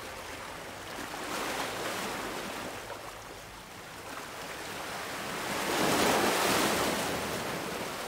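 Ocean surf washing in two swells, the second and louder one about six seconds in.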